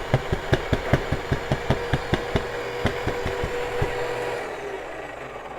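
Breville espresso machine's built-in burr grinder running at its coarsest setting with no beans to grind. A motor hum carries a rapid, regular knocking about five times a second, then winds down and stops about four seconds in.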